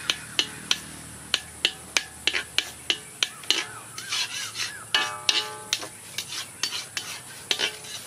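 Cylindrical stone roller rolled back and forth over a flat stone grinding slab, crushing spices: a steady run of sharp stone-on-stone clicks and scrapes, about three a second.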